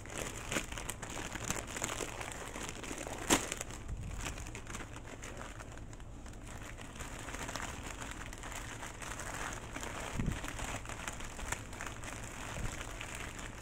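Ketchup-flavoured potato chips crinkling and crunching as they are handled and bitten, an irregular run of small crackles with one sharp snap about three seconds in.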